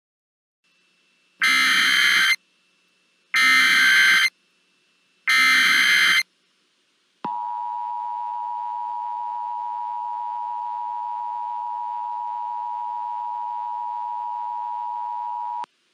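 Emergency Alert System signal: three short bursts of SAME header data about two seconds apart, then the two-tone attention signal, a steady tone held for about eight seconds before cutting off. It marks the start of an emergency alert broadcast.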